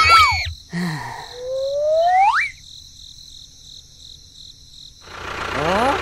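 Edited-in cartoon sound effects: a sound that glides up in pitch about a second in, then a quiet stretch over a steady chirping of crickets, with more rising glides starting near the end.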